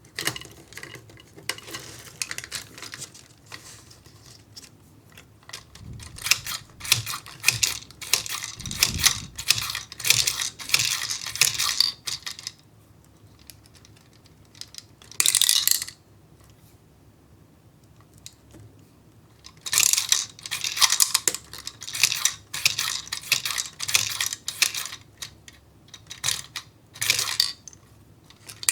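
Small hard ramune candies clicking and clattering against plastic kit parts in quick bursts of many tiny clicks, with a brief rustling burst partway through.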